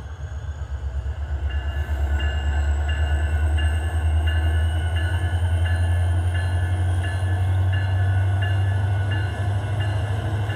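HO scale model diesel locomotives pulling a hopper train along the track, with a steady low hum that grows louder over the first couple of seconds as they come past. A regular pulsing about twice a second sets in about a second and a half in, over a faint high whine that slowly rises in pitch.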